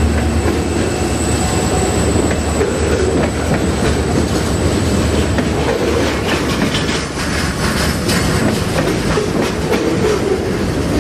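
Freight train cars rolling past close by, a steady rumble with wheels clacking over the rail joints.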